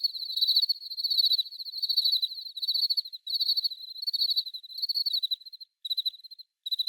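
Crickets chirping in rapid pulsing trills, several overlapping at first; in the last second and a half the calls thin out into short separate chirps with silent gaps between them.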